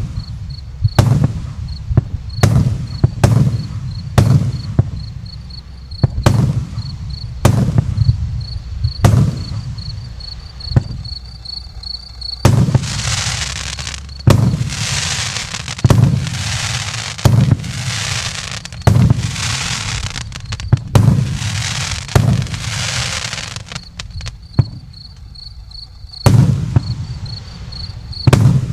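An 84-shot consumer fireworks cake with 1 to 1.5 inch tubes firing shot after shot, each a launch thump and a burst, about once a second. Through the middle stretch each shot ends in a long crackling fizz of about a second.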